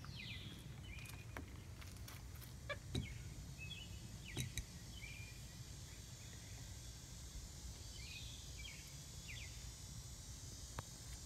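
Faint outdoor background with a bird's chirping calls. A call slides downward with a few short notes after it, once at the start and again about eight seconds in, with a couple of light clicks in between.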